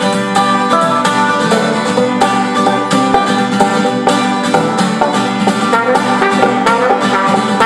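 Live acoustic folk band playing an instrumental break in the song, without vocals, over a steady beat.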